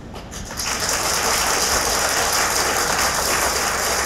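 Audience applauding, a steady crowd clapping that sets in about half a second in.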